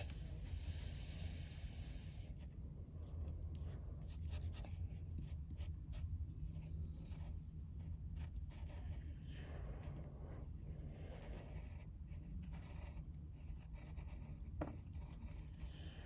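Pencil scratching on paper as lines are drawn: one longer, brighter stroke for about the first two seconds, then fainter, irregular strokes.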